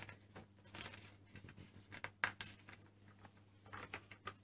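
Faint rustling and small taps of a glossy magazine page being turned by hand, with one sharper tap about two seconds in.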